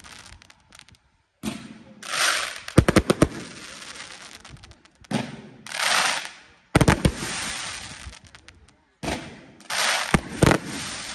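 Black Scorpion 1.4G consumer aerial fireworks firing in three volleys about four seconds apart: each a launch thump and hiss, then a cluster of sharp bangs as the shots burst, with crackling in between.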